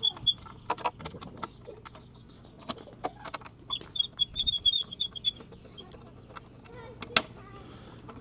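Scattered light clicks and taps of a hex key on the small bolts and plastic of a motorcycle's rear seat cowl as the bolts are unscrewed, with one sharp click about seven seconds in. Two runs of quick, even, high chirps come at the start and again around four to five seconds in.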